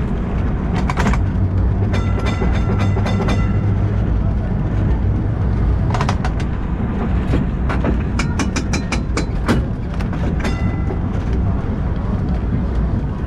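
Historic heritage tram running along its rails, heard from on board: a steady low rumble with sharp clacks, which come in a quick run in the second half. A brief ringing tone sounds about two seconds in.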